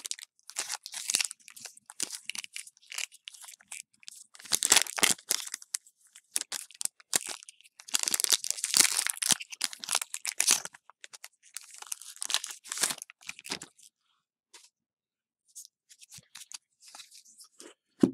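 Foil Pokémon trading-card booster pack wrapper crinkling and tearing in irregular bursts as it is opened by hand. It dies down to faint scattered rustles in the last few seconds.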